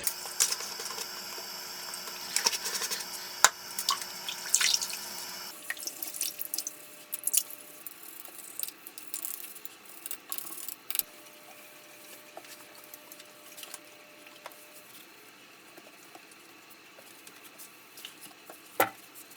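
Kitchen tap running into a sink, shut off abruptly about five seconds in, followed by scattered small clicks and knocks.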